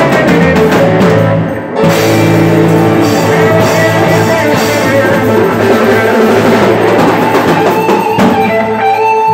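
Live rock band playing loud and steadily, with guitar over a drum kit and no singing.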